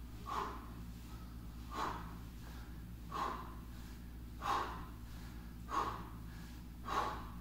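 A man breathing hard from exertion, with a sharp exhale about every 1.3 seconds, six in all.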